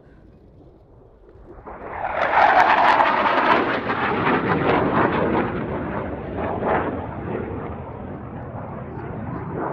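Saab JAS-39C Gripen's single Volvo RM12 afterburning turbofan passing low overhead. Its noise swells sharply about two seconds in to a loud, crackling rumble, then slowly fades as the jet climbs away.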